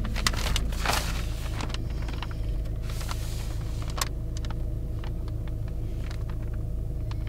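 Road noise inside a moving car: a steady low rumble with scattered small clicks and rattles, and a brief swell of hiss about a second in.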